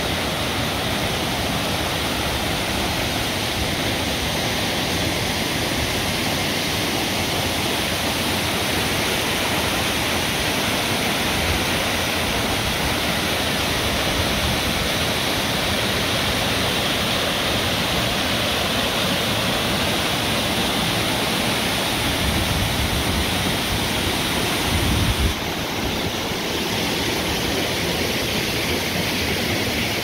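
Steady rush of a tall waterfall pouring down a rock face, heard close. A short low rumble rises briefly a few seconds before the end.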